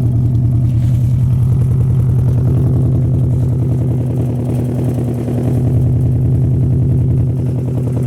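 Subaru WRX's turbocharged flat-four engine idling roughly at the exhaust, with a fast, uneven pulsing beat: the engine is misfiring.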